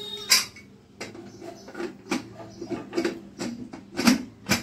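Metal pot and kitchen utensils clinking and knocking: an irregular run of sharp taps and clanks, one or two each second.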